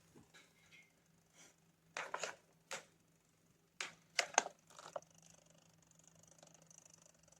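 Several sharp clicks and knocks in two quick groups, about two seconds in and again around four seconds in, over a faint steady hum.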